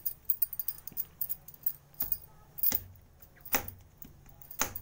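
Bangles on a woman's wrists jingling and clicking as she presses a ball of dough flat by hand on a stone rolling board. A few sharper knocks come roughly a second apart in the second half.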